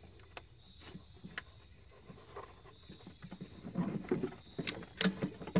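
Scattered light clicks and rustling of hands handling wiring against a plastic engine-bay fuse box, busier about four seconds in.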